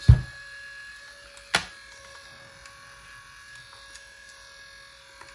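The cassette mechanism motor of an Aiwa HS-J505 walkman running with a steady whine, which the repairer traces to the motor as the odd noise. A heavy thump right at the start and a sharp click about a second and a half in.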